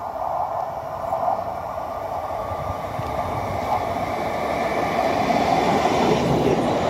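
Vintage narrow-gauge electric train approaching and passing at speed, its running noise of wheels on rail growing steadily louder as it nears.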